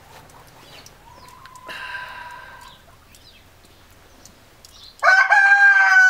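Rooster crowing twice: a fainter crow from about a second in, then a loud, long crow starting near the end.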